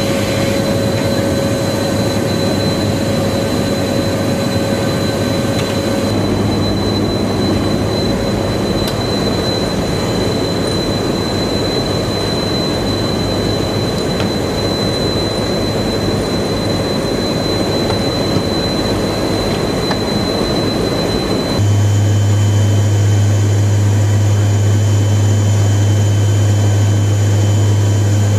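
Inside a turboprop military transport aircraft, a loud steady rush of airstream and engine noise at an open door, with a thin high whistle. About 21 seconds in it changes suddenly to a steadier cabin drone with a strong deep hum.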